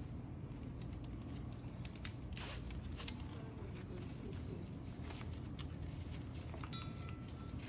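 Faint handling sounds of nylon webbing being threaded through a metal bolt snap's ring on a scuba tank, with a few light clicks, over a steady low hum. A short faint tone sounds about seven seconds in.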